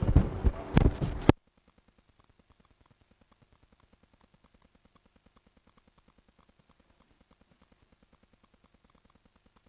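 A few loud knocks in the first second or so, then the sound cuts off abruptly to a faint, steady ticking: a stopwatch ticking sound effect counting down the time allowed for the answer.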